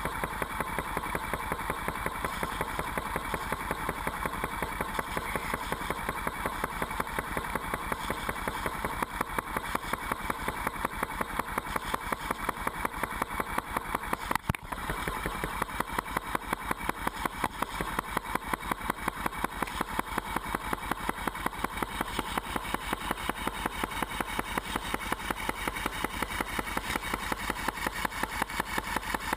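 Lawn sprinkler spraying water right at the camera, its jet going in a fast, steady pulsing rhythm, with a short knock and dip about halfway through.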